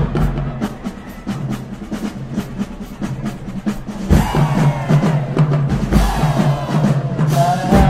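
High school marching band playing its field show: the drumline's snares and bass drums beat a fast, even rhythm over sustained low brass notes from the sousaphones, with more pitched sound joining about halfway through.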